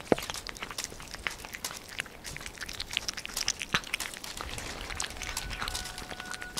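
Two cats chewing and licking boiled carp off a plate close to the microphone: a run of irregular clicks and smacks of eating.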